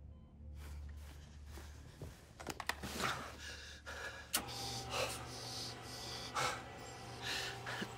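A wounded man panting and gasping in pain, his breaths coming in rough surges, with a few sharp clicks and rustles among them.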